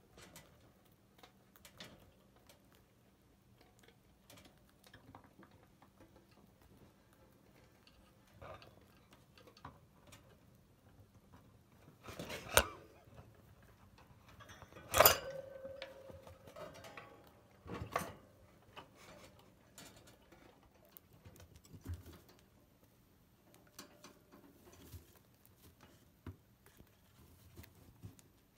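Chinchillas gnawing apple wood sticks: faint, scattered crunching and clicking. A few sharp knocks stand out around the middle, the loudest followed by a brief ringing.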